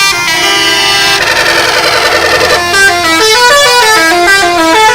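Multi-tone 'telolet' musical bus horn playing a tune of stepping notes, with a dense chord held for about a second and a half near the start.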